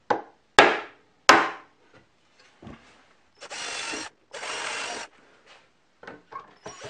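A wooden mallet knocks three times on the plywood frame of a homemade belt sander. A cordless drill then runs in two short bursts of about half a second each, with a third starting near the end.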